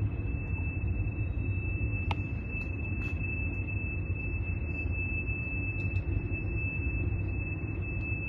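A steady high-pitched squeal held at one pitch over a low rumble, typical of rail car wheels squealing in a train yard.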